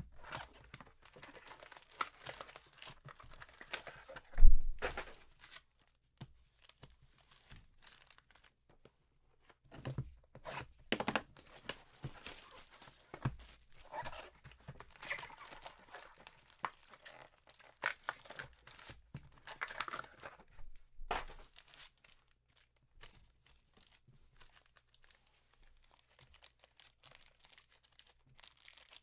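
Trading card hobby box and foil card packs being handled: irregular rustling, crinkling and cardboard scraping, with one loud thump about four seconds in. The handling dies away a few seconds before the end.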